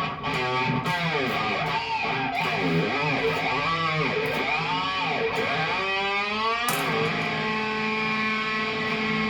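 Cort Viva guitar played with the pitch of its notes swooping up and down over and over, then a chord struck at about seven seconds and left ringing steadily.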